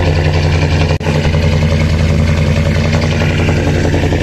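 Ram 1500's 5.7-litre Hemi V8 idling steadily just after a cold start, heard at the exhaust.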